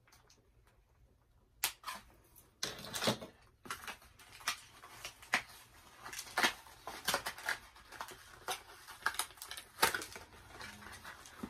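Doll packaging sleeve being handled and pulled apart as a doll is drawn out of it: crinkling and rustling with many sharp crackles and clicks, starting about a second and a half in.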